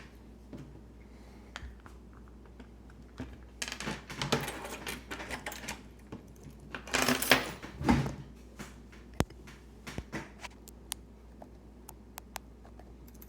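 Sargent Keso dimple lock being taken apart by hand: small metal clicks, taps and scraping from the cylinder parts, with a couple of louder bursts of handling noise and then scattered sharp clicks in the second half.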